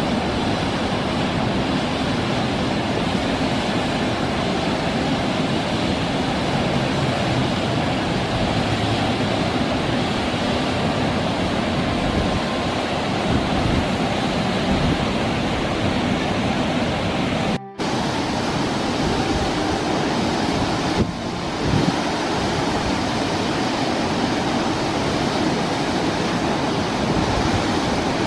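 Dam outlet discharge during a flash release: a jet of water shooting from the dam and crashing into the plunge pool, a steady heavy rush of water that breaks off for an instant about two-thirds of the way in.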